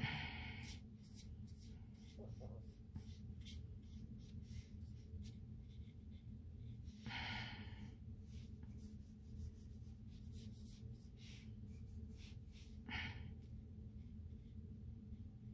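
A person breathing out three times, near the start, about seven seconds in and about thirteen seconds in, over a steady low hum.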